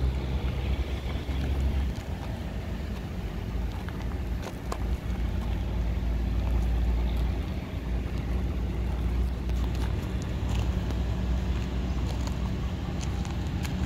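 Low, uneven rumble of wind buffeting the microphone, with a few faint clicks.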